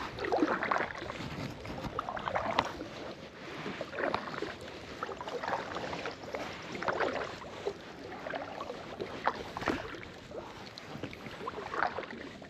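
Kayak paddle strokes dipping and pulling through the water, a splashing swish about every couple of seconds.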